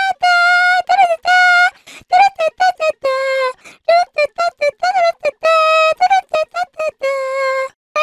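High-pitched anime-girl voice from the meme singing quick wordless 'da da da' syllables, broken by a few longer held notes.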